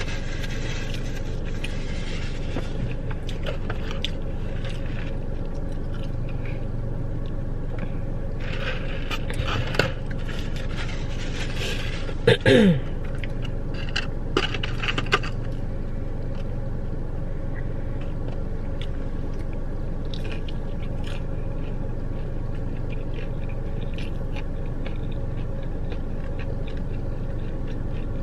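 Eating sounds: chewing, with bouts of scraping and rustling, and a loud, short squeaky scrape falling in pitch about twelve seconds in. A steady low hum runs underneath.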